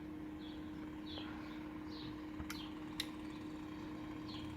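Quiet room with a steady low hum, faint high chirps repeating about twice a second, and two sharp clicks about two and a half and three seconds in. Near the end a deeper hum comes in as the furnace blower starts up after a call for cooling at the thermostat.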